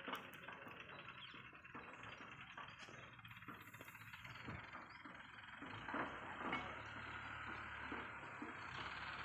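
Faint rustling and crackling of footsteps on dry leaf litter over a steady low hiss, with a couple of sharper cracks past the middle.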